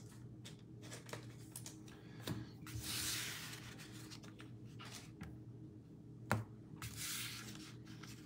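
A trading-card pack wrapper being torn open and crinkled, in two stretches about three and seven seconds in, with light clicks of cards being handled between and one sharper tap just after six seconds.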